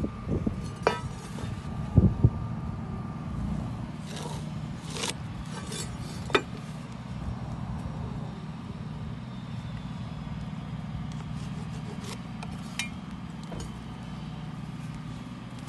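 Aluminium speed square and pencil working on a wooden board while cut lines are marked: scattered clicks, scrapes and knocks of the square being set down and shifted, with a pair of sharp knocks about two seconds in, over a steady low rumble.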